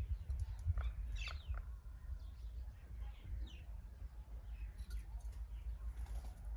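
Small wild birds chirping: a few short calls that sweep quickly downward, the clearest about a second in, over a steady low rumble.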